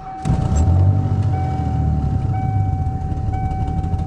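1991 Mercury Cougar's 3.8-litre V6 starts about a quarter second in and runs with a steady rumble; it is an engine with a failing head gasket, sealed with BlueDevil. The car's warning chime dings about once a second over it.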